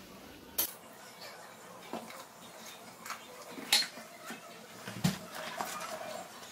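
Spoon and spatula clinking and tapping against a cooking pan and bowl while cornflour is spooned into a potato-and-noodle mixture: a few scattered sharp clinks, the loudest a little past the middle.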